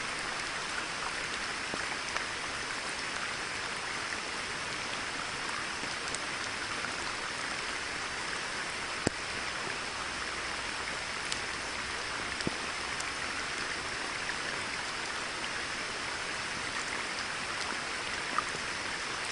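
Steady rain falling on a pond's surface: an even hiss with a few louder single drops now and then.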